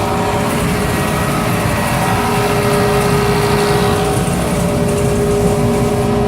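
Workshop electric air compressor running steadily, a constant motor hum over a low mechanical rumble.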